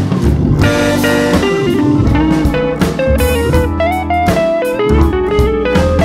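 Background music: a bluesy guitar melody with bent notes over bass and drums.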